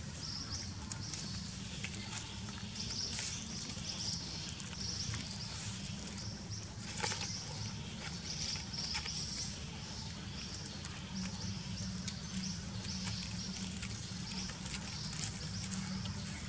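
Dry leaves crackling and rustling in short scattered bursts as baby long-tailed macaques crawl and scramble over them, over a steady low outdoor hum.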